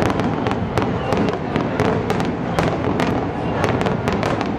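A fireworks barrage: many aerial shells bursting in quick, irregular succession, sharp bangs a few times a second over a continuous rumble.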